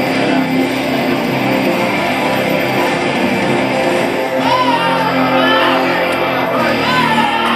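Loud guitar music playing; from about halfway through, voices shout over it.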